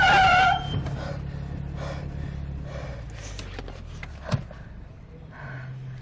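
Tyres of a vintage Volkswagen split-window bus squealing loudly as it brakes hard, stopping about half a second in. Its engine then rumbles low and steady, fading away, with a single sharp knock about four seconds in.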